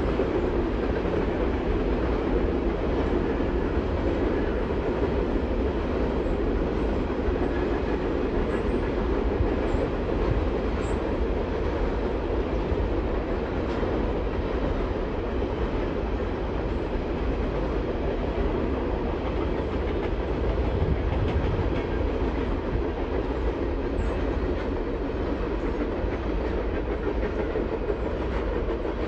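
Covered hopper cars of a freight train rolling past, a steady sound of steel wheels on rail.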